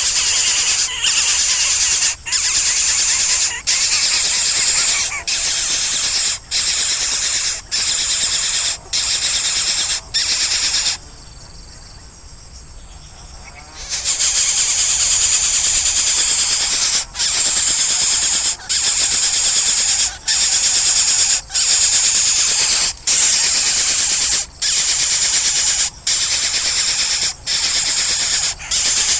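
Loud, shrill insect buzzing, high-pitched and steady. It breaks off briefly about every second and a half and drops away for about three seconds near the middle.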